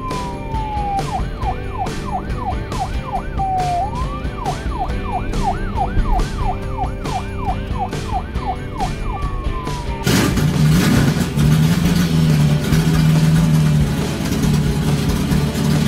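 Toy fire engine's electronic siren: a falling wail, then a quick yelp rising and falling about three times a second, then wail and yelp again, over background music with a steady beat. About ten seconds in the siren cuts off and a louder, steady low sound takes over.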